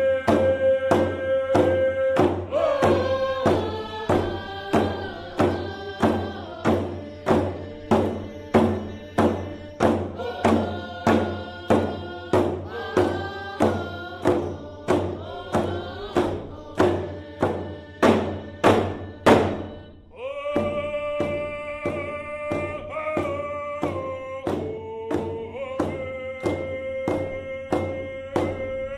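Grand Ronde canoe song: singing over a steady drum beat of about two strikes a second. About two-thirds of the way through, the beats grow louder and quicker, then the drum stops and the singing goes on in held notes.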